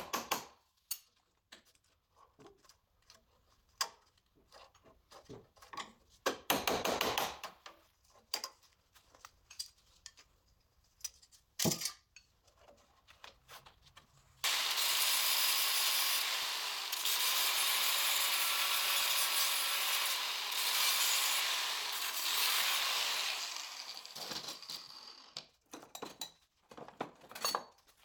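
Scattered knocks and taps of metal on the steel body shell, then a handheld power tool running loud and steady on the steel for about ten seconds from about halfway in, followed by a few more taps near the end.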